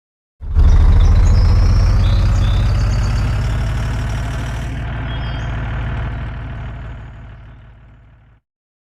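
Heavy diesel truck engine running with a rapid low pulsing throb. It starts abruptly about half a second in, fades gradually, and stops shortly before the end.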